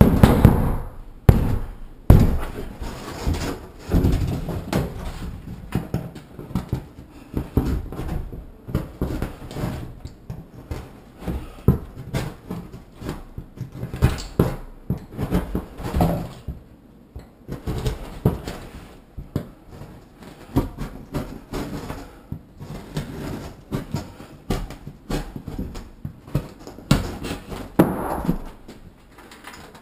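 Hands banging on a sheet of Schluter Kerdi-Board foam backer board held against the shower wall, a quick cluster of sharp knocks to mark the valve stubs on its back, followed by irregular knocks and scraping as the board is handled and fitted.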